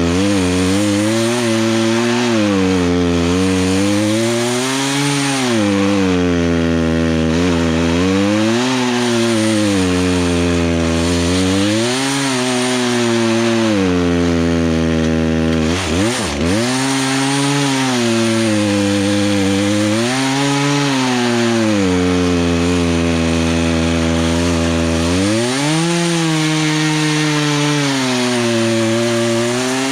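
Poulan Pro two-stroke chainsaw cutting through a log, its engine pitch sinking under load and climbing again every few seconds, with one short dip about halfway through. Near the end the pitch rises and holds higher. The carburetor's mixture is being adjusted during the cut to keep the saw from bogging and stalling.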